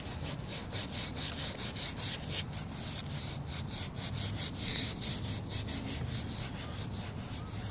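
A wad of paper towel rubbed quickly back and forth over a car door's textured interior panel, a few scrubbing strokes a second, wiping crayon off with lemon oil.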